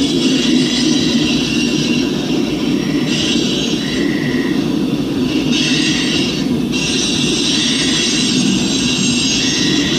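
Freight train of tank cars rolling past at speed: a steady loud rumble of steel wheels on the rail with a hiss of rushing noise. Brief high-pitched wheel squeals recur every second or so.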